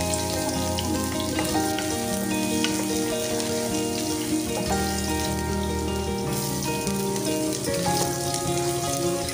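Minced garlic sizzling in hot oil in a wok, under background music of held chords and bass notes.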